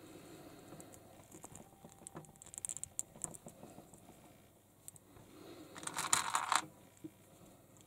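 Small plastic toy-figure parts and packaging handled on a table: light scattered clicks and taps, with a brief louder rustle of plastic packaging about six seconds in.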